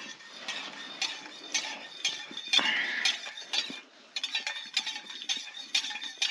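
Cups and cutlery clinking: a string of small, irregular taps and knocks of crockery, with a short pause about four seconds in.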